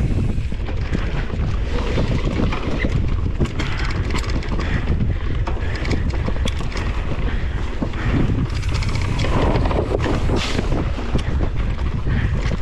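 Wind buffeting a GoPro action camera's microphone as a mountain bike is ridden fast over a sandy dirt track, with a low rumble and scattered clicks and rattles from the bike on the rough ground.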